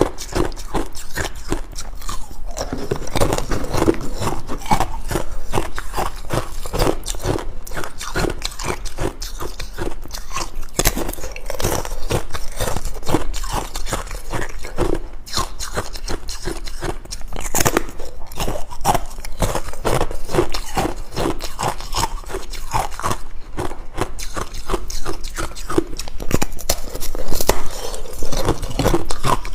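Ice being bitten and chewed close to the microphone: a fast, unbroken run of loud, crisp crunches.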